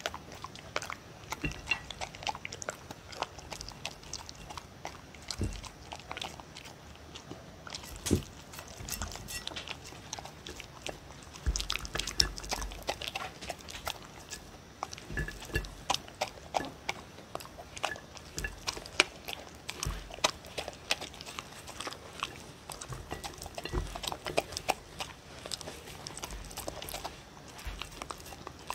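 A dog eating dry kibble with soft pieces of sweet potato, red pepper and beef off a ceramic plate, close to the microphone: a steady run of irregular crunches, chewing and sharp clicks.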